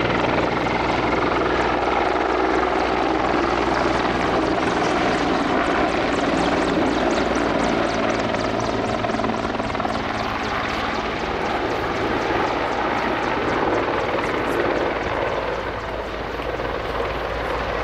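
Mil Mi-24 attack helicopter in display flight: its twin turboshaft engines and five-bladed main rotor give a loud, steady rush with a rapid rhythmic blade chop. It drops a little in level near the end.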